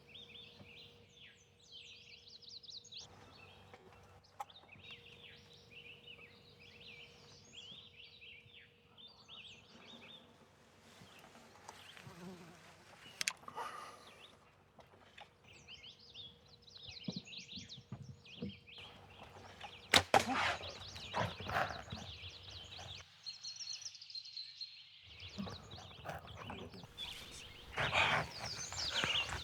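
Songbirds chirping and twittering in woodland, over a faint steady hum. About two-thirds of the way through comes a single sharp crack, the loudest sound, followed by bursts of rustling and knocking.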